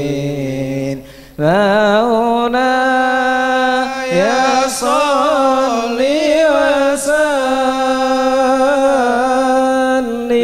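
A voice chanting an Islamic sholawat in long, wavering held notes that slide from pitch to pitch, with a short break about a second in.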